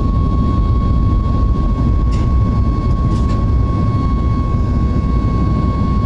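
Cabin noise of a Boeing 737 MAX 8 climbing out after take-off: a steady low roar of its CFM LEAP-1B turbofan engines and airflow, with a thin steady whine above it.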